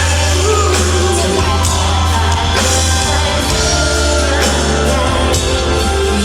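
Live Thai pop song played loud through a PA in a large hall, with a heavy, steady bass line. A voice is heard briefly near the start, between sung lines.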